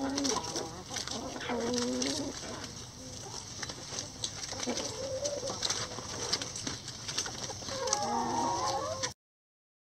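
A flock of hens clucking and calling now and then, with a flurry of calls near the end, over many quick clicks and rustles from pecking at leafy greens and litter. The sound cuts off suddenly near the end.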